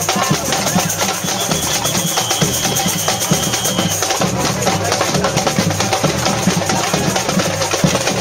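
Live street percussion band playing a driving, steady rhythm: large metal-shelled bass drums struck with mallets under a dense layer of quicker, higher drum and wood-block-like strokes.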